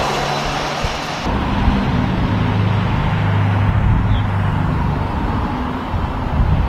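A hi-rail truck rolling on the rails with a steady low hum and hiss, then an abrupt change about a second in to road vehicle engines running with a steady low hum.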